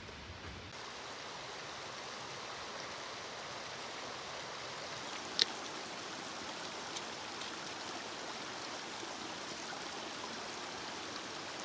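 Shallow, rocky forest creek running with a steady rush of water. One sharp click comes about five seconds in.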